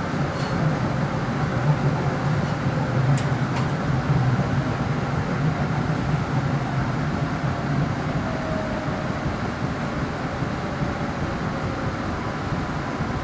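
An MBTA Green Line light-rail car running between stops, heard from inside the car: a steady rumble of wheels on rail and running gear. A low hum is strong for the first seven seconds or so and then fades, and a single sharp click comes about three seconds in.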